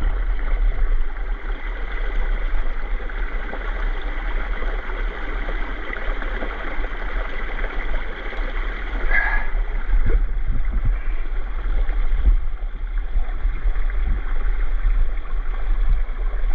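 Steady rush of running creek water, with a heavy low rumble beneath it and a few soft knocks from about ten seconds in.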